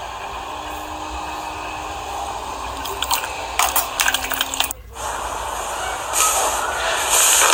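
Slime being squeezed and poked: a steady soft hiss, then a run of sharp crackling clicks and pops about three seconds in, and after a brief break a louder crackling hiss.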